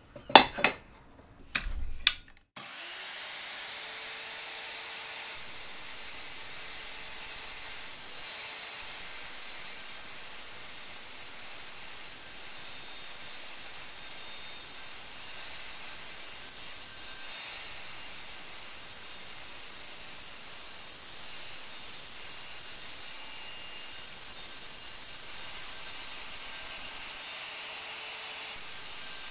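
A few sharp metal knocks as a piece of steel is set on the saw, then the Evolution R185SMS sliding mitre saw's motor spins up about two and a half seconds in and runs steadily as its carbide-toothed multi-material blade is fed slowly through the steel.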